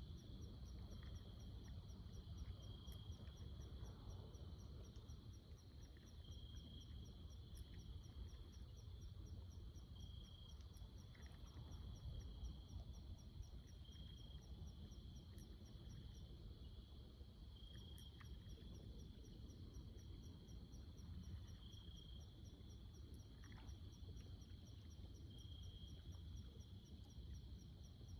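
Faint insect chorus: a fast, steady high pulsing, with a higher trill that swells about every four seconds, over a low rumble of wind or outdoor noise.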